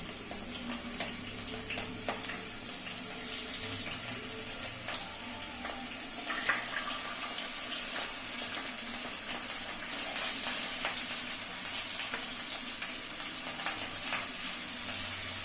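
Black pomfret pieces frying in hot mustard oil in a nonstick kadai: a steady sizzling hiss that grows a little louder as more pieces go in, with light clicks and scrapes of a wooden spatula.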